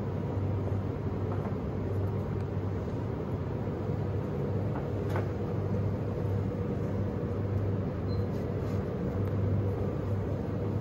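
Steady low hum and rumble of an open refrigerated display case running, its drone pulsing gently.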